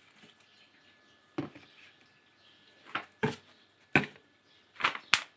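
A few separate knocks and clatters of containers being picked up and set down on a hard surface, about six over a few seconds, as dishwasher detergent packs are brought out.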